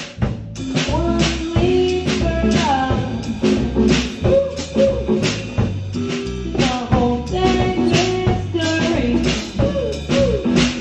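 Band music: a drum kit keeping a steady beat under bass and a melody line.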